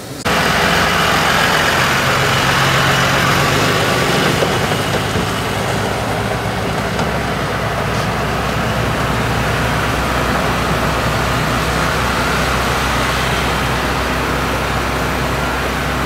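Utility bucket truck engines idling with a steady low hum under a constant rushing noise.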